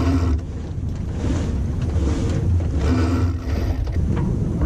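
Wind buffeting the microphone on the deck of a sailing trimaran under way: a steady low rumble with a haze of rushing air and water.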